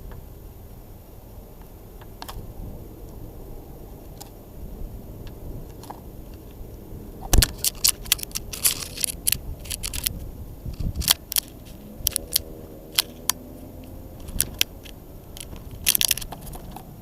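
Birds pecking seed in a plastic window feeder: irregular sharp taps and clicks of beaks on plastic and seed, starting about seven seconds in and coming in quick clusters.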